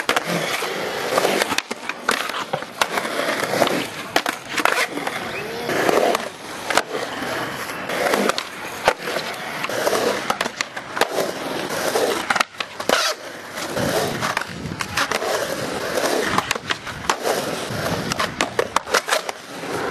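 Skateboards rolling on concrete and clacking against the lip of a concrete quarter pipe: repeated sharp board slaps and wheel and truck impacts as tricks are done on the lip, with voices talking now and then.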